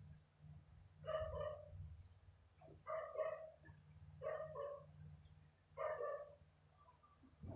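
Four short animal calls in a row, each about half a second long and roughly a second and a half apart, over a steady low hum.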